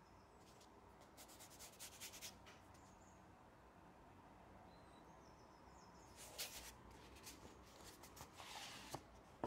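Faint rustling and scraping of a cardboard Blu-ray slipcover being handled, with the plastic case sliding out of it. It comes in two spells, about a second in and again from about six seconds, and ends with a sharper tap.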